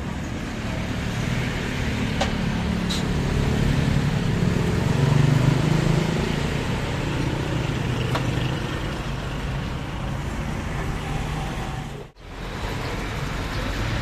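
Road traffic: a vehicle's engine hum swells as it passes, loudest about five seconds in, then eases. The sound cuts out for an instant near the end.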